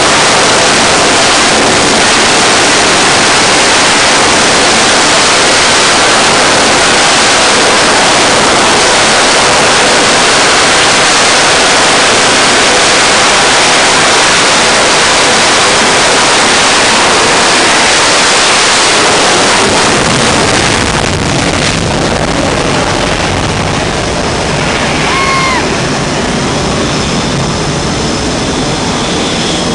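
Jet engine noise on a carrier flight deck: a loud, steady roar from an F/A-18 Super Hornet running on the catapult. About twenty seconds in it drops slightly and turns deeper, and a thin high whine comes in near the end.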